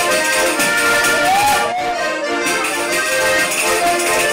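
Trikitixa, the Basque diatonic button accordion, playing a lively traditional tune in held chords and quick note changes. About a second and a half in, a voice briefly slides up and back down over the music.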